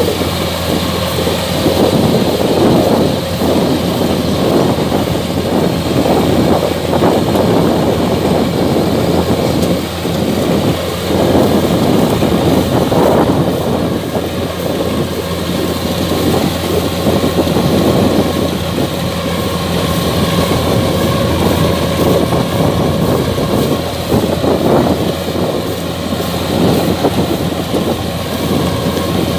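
Kubota DC-105X combine harvester running steadily while harvesting rice: a constant diesel engine drone under a rough, churning clatter of the cutting and threshing machinery.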